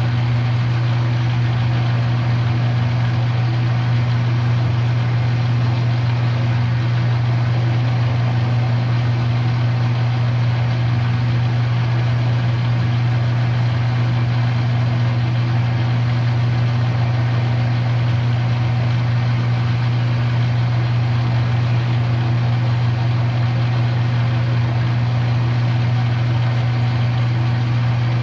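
A metalworking machine tool running steadily during a cut, with a strong low hum and a constant hiss that do not change.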